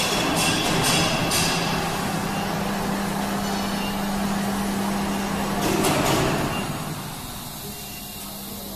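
A CNC engraving and milling machine running: a steady mechanical hum with one constant low tone under a rushing noise. The noise swells briefly about six seconds in, then falls quieter.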